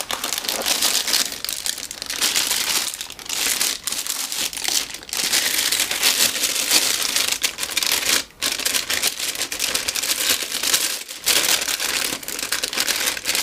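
Clear plastic wrapping bag crinkling continuously as hands lift a boxed receiver out of its foam packaging and handle it in the bag, with a few brief pauses.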